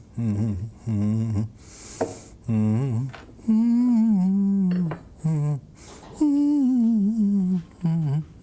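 A person humming a wordless tune in short notes, with two long held notes that waver in pitch; the second slides downward.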